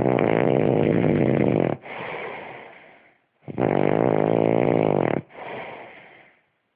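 A man snoring loudly in his sleep: twice, a long rattling snore with a buzzing pitch is followed by a quieter breath that fades out.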